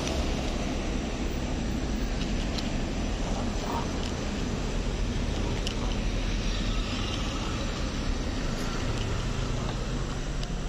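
Two cats crunching dry kibble from a plastic tray, heard as a few faint, crisp clicks over a steady, low, rumbling background noise.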